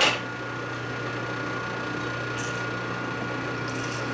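Metal lathe running steadily with a constant hum and a thin high whine, after a short sharp knock right at the start.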